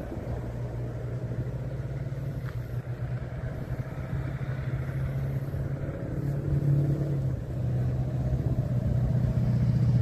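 Road traffic: a motor vehicle's steady low engine hum that grows louder over the last few seconds, then cuts off suddenly.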